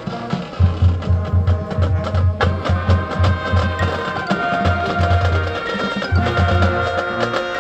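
A high school marching band playing its competition show: sustained wind and brass chords over a steady run of deep drum beats, which come in about half a second in, with lighter percussion on top.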